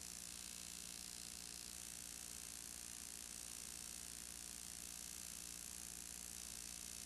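Faint steady hiss with a low electrical hum, unchanging throughout: the background noise of a transfer of silent film.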